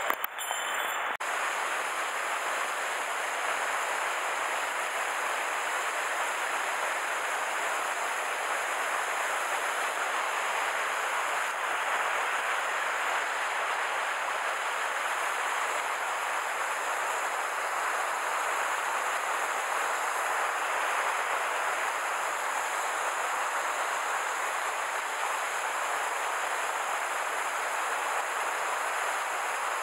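Steady rush of stream water spilling over a low concrete weir and running through white water below.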